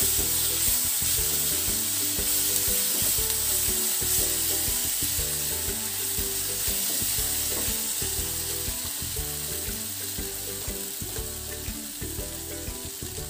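Onion and spice masala sizzling in hot oil in a nonstick frying pan, stirred with a wooden spatula; the sizzle slowly dies down.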